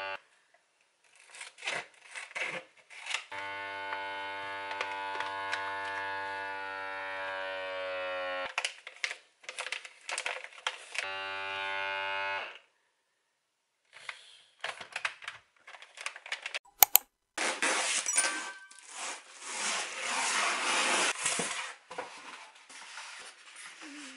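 Handheld vacuum sealer's pump motor running with a steady whine in two runs, about five seconds and then a second and a half, with clicks of the bag being handled between; the bag is not sealing properly, which is put down to a fault in the machine. Later a sharp click, then a plastic produce bag of salad leaves crinkling loudly for several seconds.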